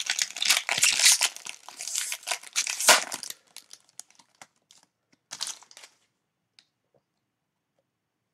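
Foil trading-card pack wrappers crinkling and being torn open, dense for the first three seconds or so with the loudest tear near the end of that stretch, then a few scattered rustles that stop about six seconds in.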